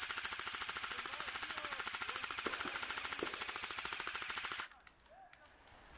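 Airsoft electric rifle firing on full auto: one long burst of rapid, evenly spaced shots that cuts off suddenly about four and a half seconds in.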